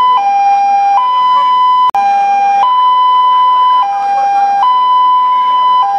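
Loud two-tone emergency-vehicle siren, switching back and forth between a higher and a lower pitch about once a second.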